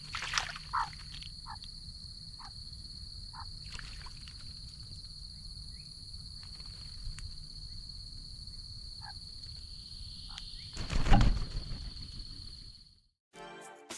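Australian magpie bathing in a backyard birdbath: a loud flurry of splashing and wing-flapping about eleven seconds in, with a few short chirps earlier. A steady high-pitched whine and a low rumble run under it, and everything cuts off near the end as music begins.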